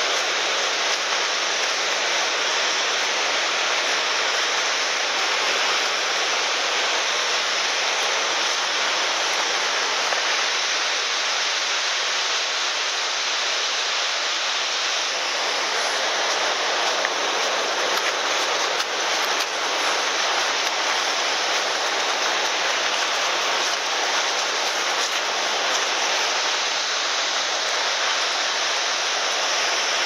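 Gullfoss waterfall's steady rushing roar of falling water.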